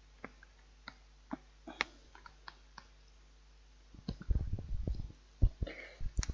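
Close-up eating noises from a serving of microwave noodles: scattered small clicks at first, then denser clicks and soft low knocks from about four seconds in.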